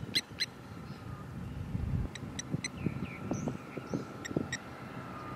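A light single-engine aircraft's engine drones faintly and steadily. Birds call over it in short sharp chirps, in groups of two or three.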